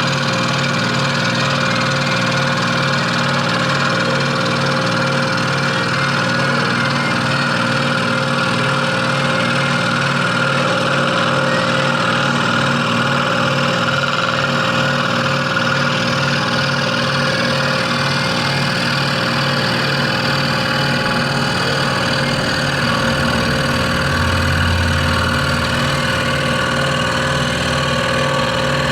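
Electric scroll saw running steadily with an even motor hum and blade chatter, and a deeper hum that swells for a couple of seconds about three-quarters of the way through.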